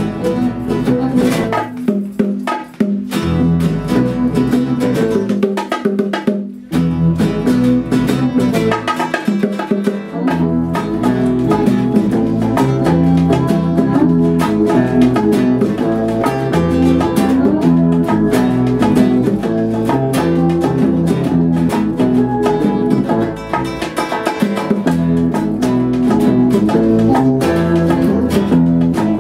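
Instrumental Cuban jam-session music: guitar over percussion, with a low bass line. The music breaks off briefly about six and a half seconds in.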